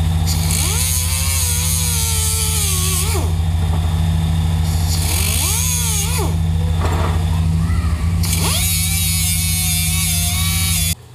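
Air-powered die grinder running against a wheel hub's bearing-race bore, deburring punch nicks so the new race can seat fully. It runs in three spells with a high hiss, its whine sagging and rising in pitch as it bites, over a steady low hum, and cuts off abruptly near the end.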